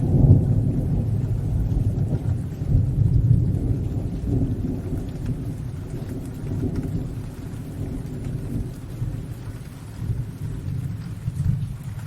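Rolling thunder over steady rain: a deep rumble that is loudest at the start, slowly dies away, then swells again briefly near the end.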